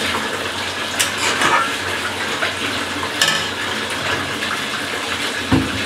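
Wooden spatula stirring a thin poppy-seed curry in a metal kadai, knocking against the pan about a second in and again after three seconds, over a steady hiss of the curry heating on the stove. A dull thump near the end.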